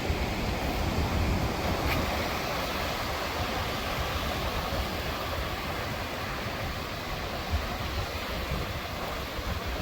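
Sea waves washing ashore in a steady rush of surf, with a low wind rumble on the microphone.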